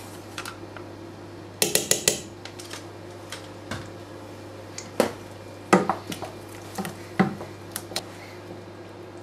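Kitchen utensils clinking and knocking against a stainless steel cooking pot: a quick run of clicks about two seconds in, then single knocks every second or so.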